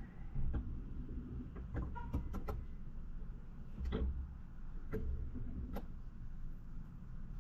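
Low, steady rumble of a car on the move, with a handful of sharp clicks and knocks scattered through it.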